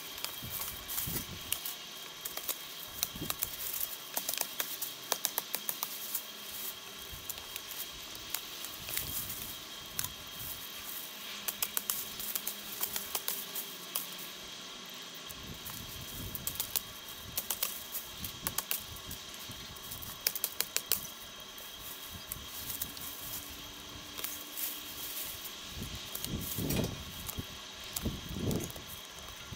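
Irregular clicks, snaps and rustling from bay tree branches and leaves being cut and pulled with hand tools.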